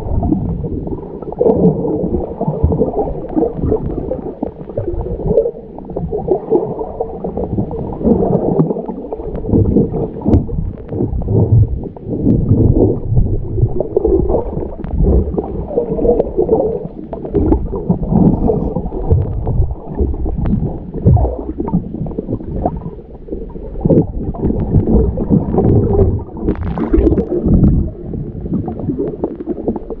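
Muffled underwater rumbling and gurgling from water moving past a submerged camera as a diver swims along the seabed, rising and falling unevenly, with a few brief hissier flares near the end.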